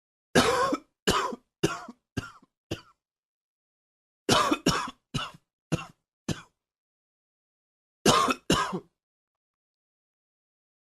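A man coughing in three bouts: five coughs that get fainter, five more after a pause, then a pair near the end.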